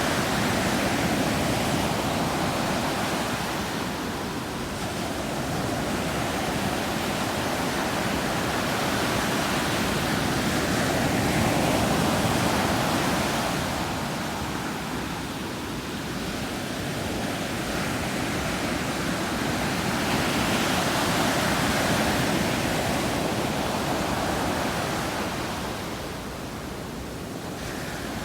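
Ocean waves breaking on a beach: a continuous rushing wash that swells and eases slowly as each set of waves comes in and draws back.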